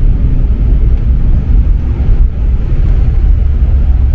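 Cabin noise in a KLM Cityhopper Embraer jet rolling on the ground after landing: a loud, steady low rumble of the engines and the wheels on the pavement.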